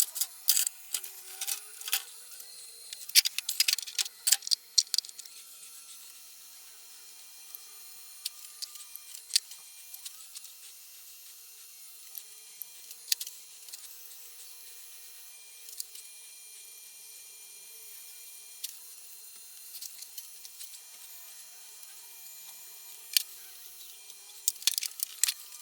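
Sharp clicks and taps from tools and metal parts being handled in a machine shop, bunched in quick runs near the start and near the end and scattered in between, over a faint steady high hum.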